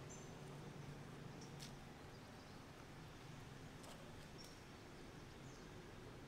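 Near silence: faint outdoor ambience with a steady low hum, a few brief faint high chirps and a couple of soft clicks.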